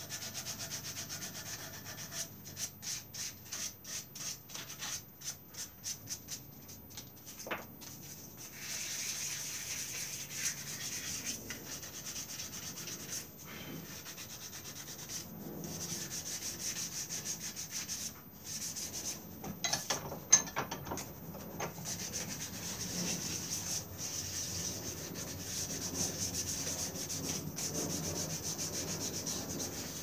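Hand sanding of a small carved piece of a woodcock stick's beak: short, quick rubbing strokes at first, then a steadier run of rubbing. One sharp tap stands out about twenty seconds in.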